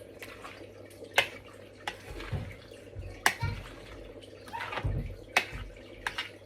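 Aerosol whipped cream can spraying in a few short hissy spurts, among sharp clicks and taps.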